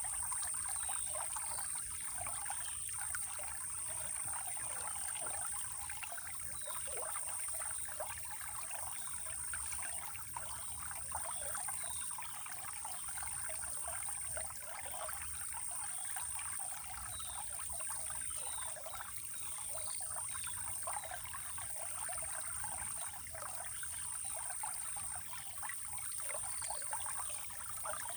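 Running water trickling and babbling steadily, with a continuous high-pitched insect drone over it.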